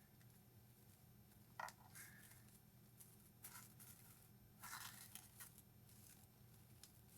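Faint handling sounds of small plastic craft pieces: a sharp click about a second and a half in, then brief rustling scrapes around three and a half and five seconds in.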